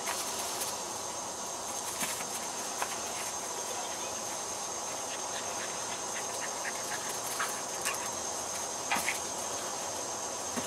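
Steady background hiss with a thin, constant high-pitched whine, broken by a few faint soft ticks.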